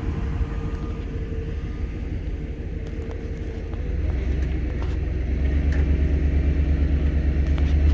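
Truck engine running under load as it pulls the coop by its hook, the low rumble growing louder about four seconds in and again near the end.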